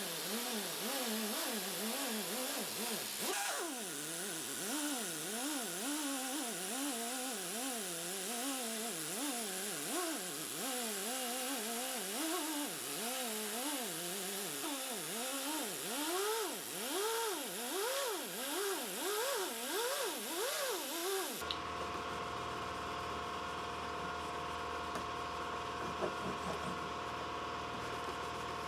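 Small motorised buffing wheel polishing guitar frets with jeweler's rouge; its pitch dips and recovers over and over as the wheel is pressed on and eased off each fret. About 21 seconds in, the sound changes abruptly to a steady hum.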